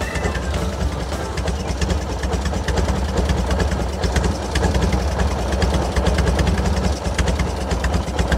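Harley-Davidson Shovelhead V-twin engine idling steadily, fed by an S&S Super E carburettor that is being set up.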